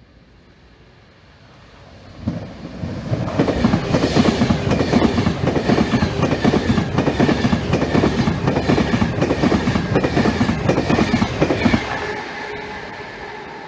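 Class 390 Pendolino electric train passing through the station without stopping. Its wheels clatter rapidly over the rails. The sound builds sharply about two seconds in, stays loud for about ten seconds, and fades near the end.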